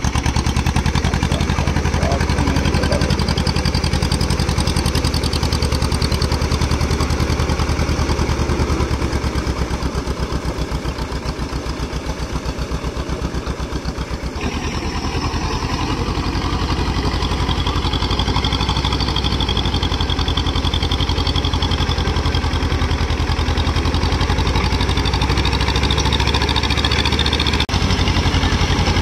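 Small diesel tractor engines chugging steadily under load as cage-wheeled tractors pull puddling implements through a flooded paddy field. The engine sound changes abruptly about halfway through and again briefly near the end.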